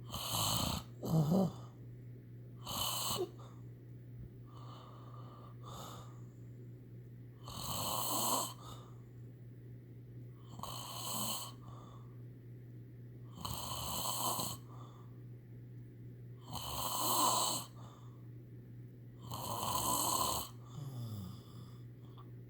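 Snoring, one snore about every three seconds, over a steady low hum.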